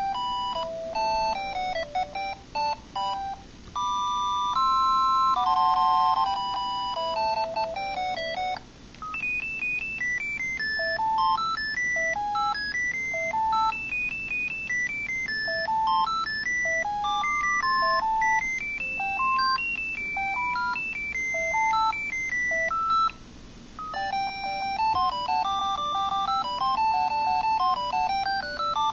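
Audiovox CDM-9150X cell phone playing its built-in beepy jingle ringtones: simple electronic melodies of short stepped notes, three tunes in turn, each changing over after a brief gap about 9 seconds in and again about 23 seconds in.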